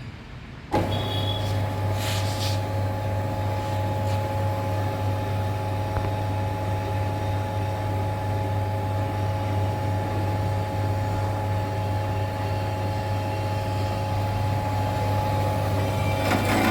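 Metal-cutting band saw machine switched on under a second in, its motor running steadily with a low hum and a steady whine; near the end the sound changes and grows a little louder.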